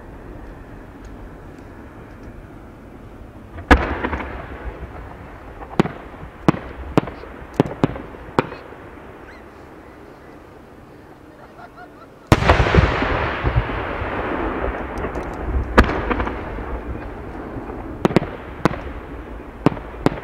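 Aerial firework shells bursting. A loud bang comes about four seconds in, then a quick run of sharp reports. About twelve seconds in a heavy burst sets off a dense hiss that fades over several seconds, and more single bangs follow near the end.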